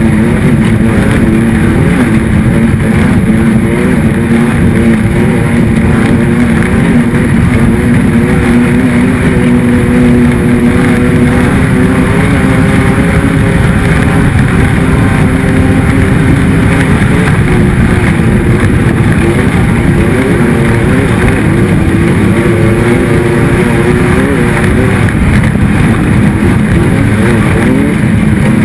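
Off-road race vehicle's engine running hard without a let-up, its pitch holding and then wavering as the throttle changes, over a steady rush of wind and terrain noise.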